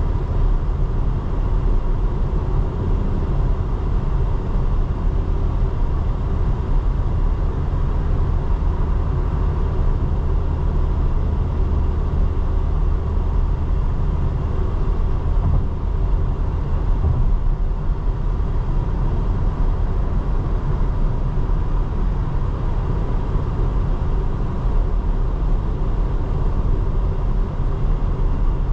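A 2024 Porsche Cayenne on the move at a steady pace: a low, even rumble of road and engine noise.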